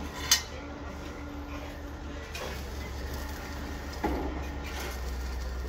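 Building-site sound of workers handling steel rebar on formwork: a steady low rumble, with a sharp click about a third of a second in and a few lighter knocks around two and a half and four seconds in.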